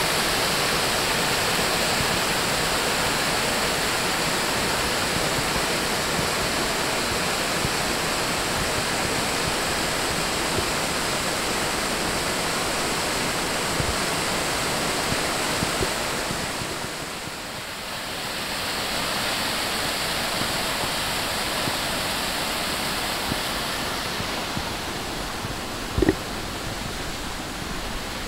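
Steady rush of whitewater from a mountain creek's cascades, swollen by heavy rain. The rush dips briefly about two-thirds of the way through and then carries on a little quieter, with one sharp knock near the end.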